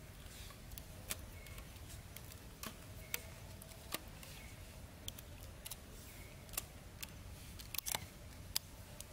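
Light, sharp clicks and taps of small bamboo sticks being handled and fitted together on a trap trigger. They come irregularly, a few at a time, with a quick cluster about eight seconds in, over a low steady background rumble.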